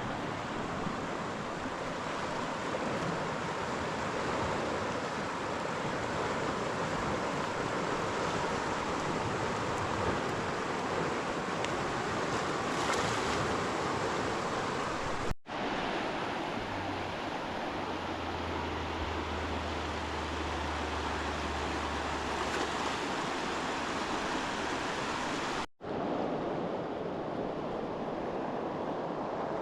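Steady rushing of river water, an even noise with no distinct events, broken twice by abrupt cuts. A low hum sits under it for a few seconds after the first cut.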